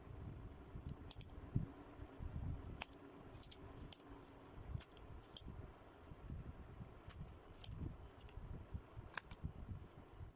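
A dozen or so sharp, irregular clicks and small taps, with low, uneven thumps of handling noise beneath.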